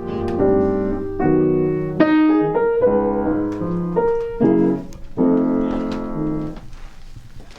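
Piano playing a short passage of jazz chords, the last chord held and fading away about six and a half seconds in.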